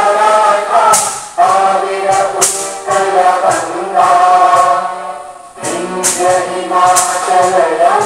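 A group of voices singing a song together in unison, in long held phrases, with a short break about five seconds in.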